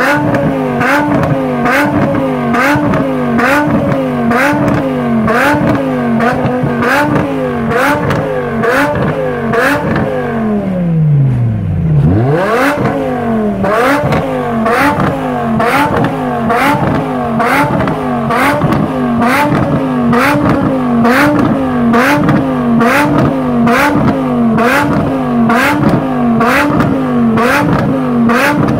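BMW M6 E63's 5.0-litre V10 through an Eisenmann race exhaust, revved in quick blips about once a second, some thirty times over, with a short sharp crack at each blip. About ten seconds in the revs fall away almost to idle, then the blipping starts again.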